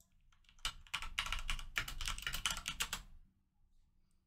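Fast typing on a computer keyboard: a quick run of keystrokes starting just under a second in and stopping about three seconds in.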